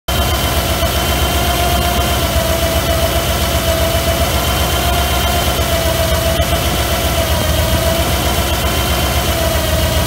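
Early Bronco engine idling steadily, with a steady whine over the fast low pulsing, while it runs to bleed air out of the cooling system.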